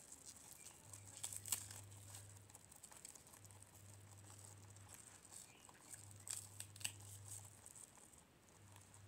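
Faint crisp crunching and rustling of leafy greens as a guinea pig chews lettuce leaves and more leaves are handled onto its plate, with a few sharp crackly snaps about a second and a half in and again around six to seven seconds in.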